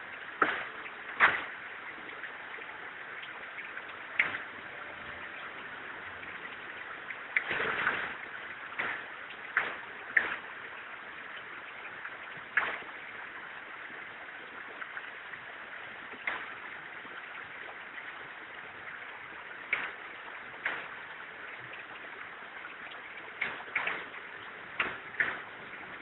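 Steady hiss with irregular sharp knocks and clicks a second or several apart, some in quick pairs, from circuit boards being handled and knocked over a sawdust stove to loosen their ICs.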